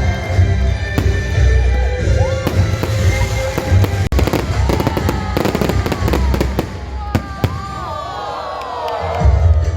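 Fireworks going off in a fast run of sharp bangs and crackles, densest in the middle. Music with a heavy bass line plays along, dropping out briefly near the end before coming back.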